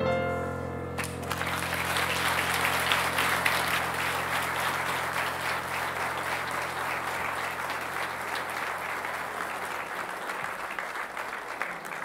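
Audience applauding, starting about a second in. Under it the final held chord of the accompaniment rings out and fades away.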